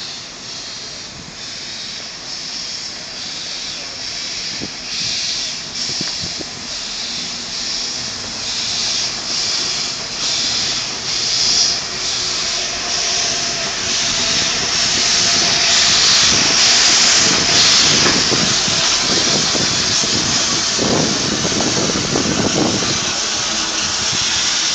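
Narrow-gauge steam locomotive of the Walt Disney World Railroad moving slowly past, its exhaust puffing about once a second. From about the middle it gets louder, with a long heavy hiss of steam.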